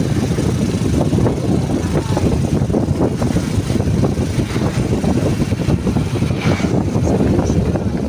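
Motorcycle-sidecar tricycle running along the road: a steady low engine and road rumble.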